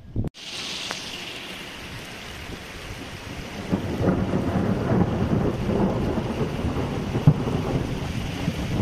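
Thunderstorm: heavy rain hissing steadily, with a rumble of thunder building from about four seconds in, and a single sharp crack near the end.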